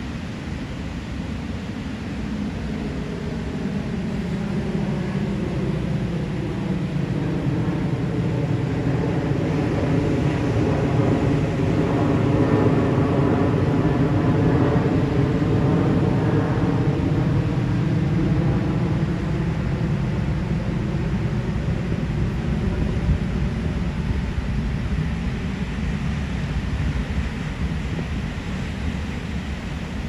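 An airplane flying past, growing louder to a peak about halfway through and then fading away.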